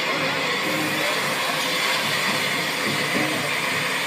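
Bulleid West Country class steam locomotive 34007 Wadebridge pulling away slowly: a steady rushing noise of working steam, with no sharp beats standing out.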